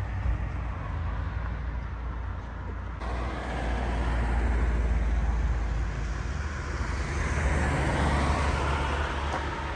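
Street traffic: cars passing on a town road, the sound swelling twice as vehicles go by, over a steady low rumble.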